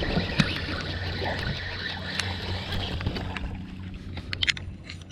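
Steady hum of a boat's motor with water noise, easing off about three and a half seconds in, then a quick run of sharp clicks near the end.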